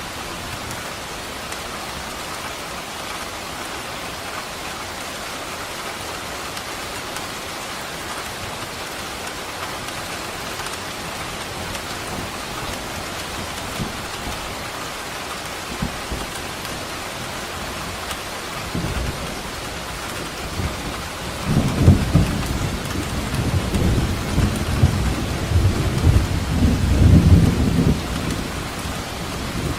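Steady heavy rain falling, with a long rolling rumble of thunder that builds about two-thirds of the way through, peaks twice and fades near the end.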